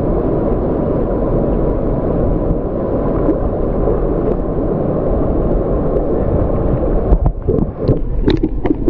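Muffled, distorted rushing noise from a phone microphone flooded with water. About seven seconds in it breaks up into irregular crackling and gurgling pops.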